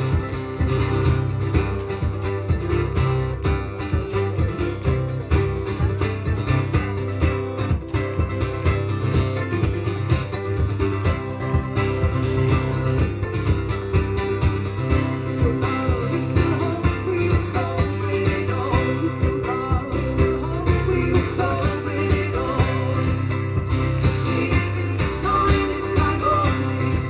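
Live band music in an instrumental passage of a song: guitars strummed in a steady rhythm, with a wavering melodic line over them in the second half.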